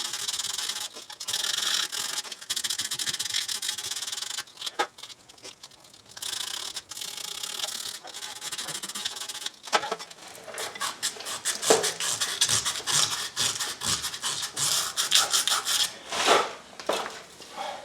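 Hand scraping and scrubbing of corrosion off the rear steering knuckle's hub mounting face, in repeated rasping strokes with a pause in the middle.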